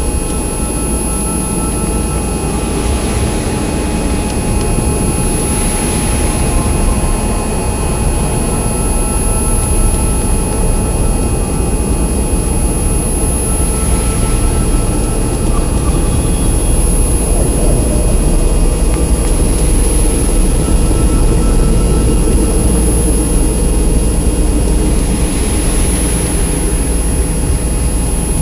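A dense, steady electronic drone: a loud low rumble layered with several held high tones, with soft swells of hiss every few seconds.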